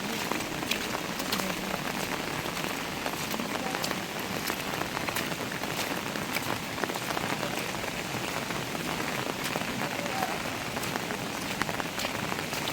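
Heavy monsoon rain falling steadily, with many individual drops ticking sharply on a surface.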